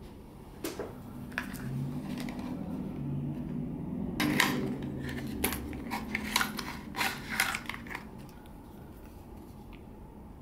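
A cardboard box being handled and opened and a plastic blister pack slid out of it: a few sharp clicks, then a busier run of crisp crinkles and scrapes of cardboard and plastic from about four seconds in to about eight.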